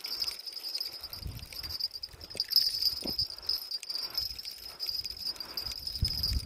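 Insects trilling steadily at a high pitch, with scattered low thumps and rustling.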